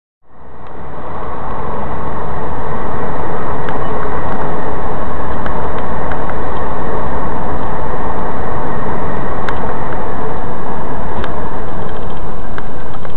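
Steady road and engine noise of a moving vehicle, picked up by a dash camera's microphone. It fades in over the first second or two and then holds, with a few faint clicks.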